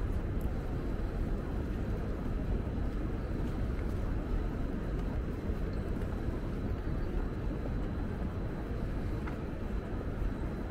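Steady low rumble of city street background, traffic noise with no distinct events standing out.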